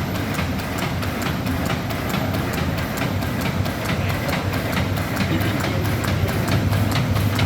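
High-speed bag sealing and cutting machine running, its cutter and seal bar cycling in a rapid, even clacking over a steady low hum.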